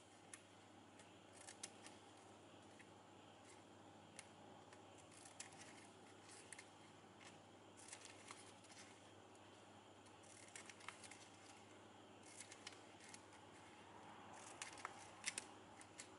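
Scissors snipping through glossy ribbon, trimming off the overlong ribbon ends: faint short snips in small clusters every second or two.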